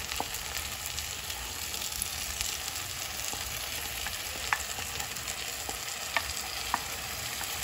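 A pan of ground-meat and tomato sauce sizzling steadily on the stove while cream sauce is added and stirred in, with a few sharp clicks scattered through it.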